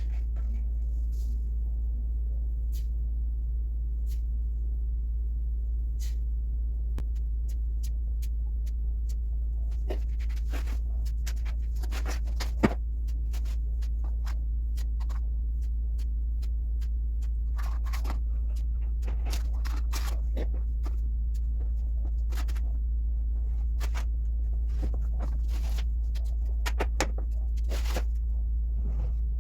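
Bodywork on a car door: scattered clicks, scrapes and knocks, busier in the second half, with one sharp knock about halfway through, over a steady low hum.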